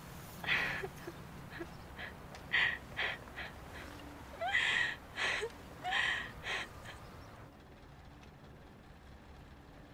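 A young woman sobbing: gasping, catching breaths and short whimpers in irregular bursts over the first seven seconds, then it goes quiet.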